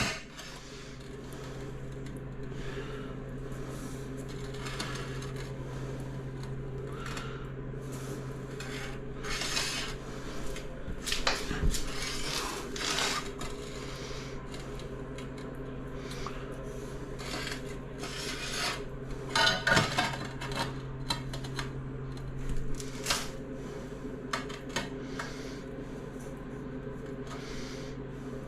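Ceramic tile and tools being handled on a work surface: irregular hard clinks, knocks and scraping or rubbing, over a steady low hum. It is busiest around ten to thirteen seconds in and around twenty seconds in.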